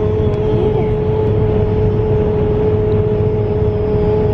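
A man's voice holding the end of a drawn-out "hellooo" as one long note on a steady pitch, over the low rumble of car road noise inside the cabin.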